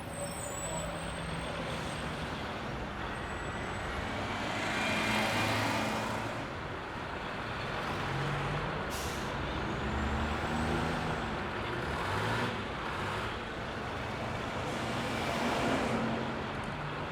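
Road traffic with heavy vehicles, rising and fading as they pass three times, and a short high hiss about nine seconds in.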